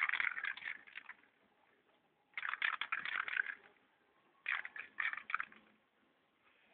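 Aerosol spray-paint can hissing in three bursts of about a second each, as red paint is sprayed onto a woven bamboo wall.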